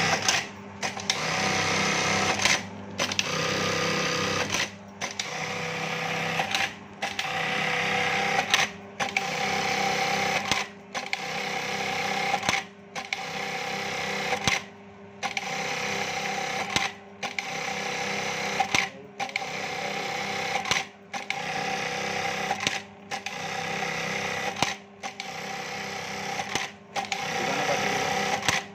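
A Juki LK-1850 bartack machine sewing one bartack after another. Each cycle lasts about two seconds: a rapid stitching run, then a brief pause, with a sharp peak at the start of each run. A steady motor hum carries on through the pauses.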